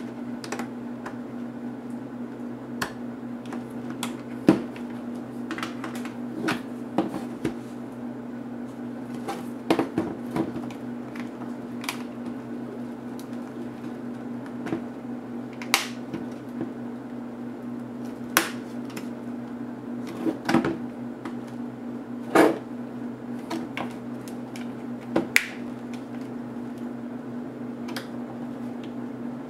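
Scattered clicks and taps of the plastic parts of a netbook's display lid being handled and pried apart, over a steady low hum.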